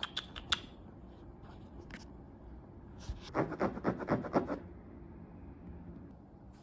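A few light clicks at the start, then a quick run of about a dozen short, scratchy rubbing strokes a little past the middle.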